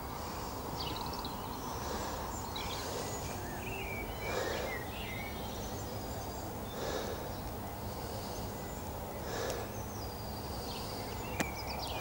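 Outdoor ambience with a steady low rumble and small birds chirping now and then. Three soft whooshes come about two and a half seconds apart, and there is one sharp click near the end.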